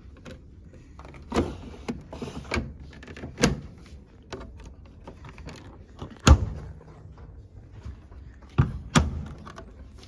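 Washing machine loading doors being opened and shut, a series of clicks and thuds with the loudest thud about six seconds in and two more close together near the end.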